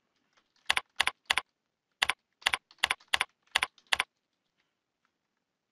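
Typing on a computer keyboard: about ten separate keystrokes in an uneven rhythm over some three seconds.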